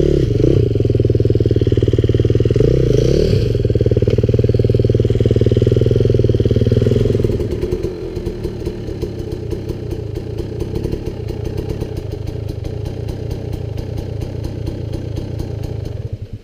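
A Husqvarna dirt bike's engine runs loud and close, revving as the bike claws over snow-covered rocks. About halfway through, the sound drops to a quieter, more distant dirt bike engine running with a rapid, even putter.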